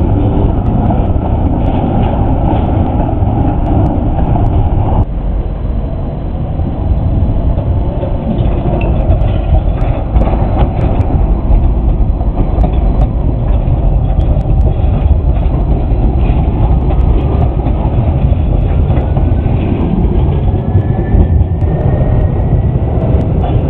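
City trams running over curved street track: a steady rumble of wheels on rail, with scattered clicks as the wheels cross rail joints and points. A faint rising whine comes in near the end.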